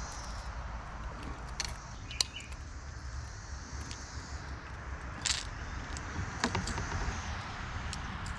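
Small metallic clinks and jingles of fishing lures and treble hooks being handled, with a few sharp clicks, over a low steady rumble.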